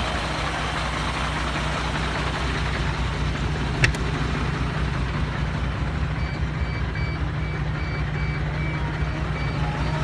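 A MAN TGS 32.360 concrete mixer truck's straight-six diesel engine idling steadily, a low rumble. One sharp click comes about four seconds in. From about six seconds, a row of evenly spaced high beeps sounds for several seconds.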